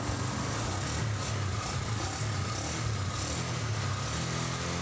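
Kawasaki Barako 175's single-cylinder four-stroke engine idling steadily and low. The idle is set too low, so the engine tends to stall.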